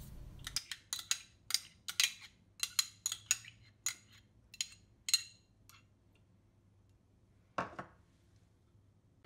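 Metal spoon clinking and scraping against a small ceramic dish while thick sour cream is scooped out: a quick run of short, ringing clinks for about five seconds, then a single softer knock near the end.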